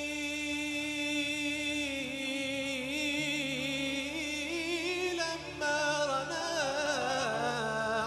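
A male singer holding a long wordless vowel of a mawwal with a wavering vibrato, then breaking into quick ornamented melismatic runs higher up about five seconds in.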